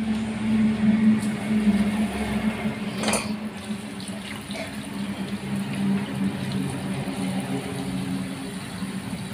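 Tap water spraying down onto hands and splashing into a steel bowl as goat trotters are rinsed, with a steady low hum underneath and a brief knock about three seconds in.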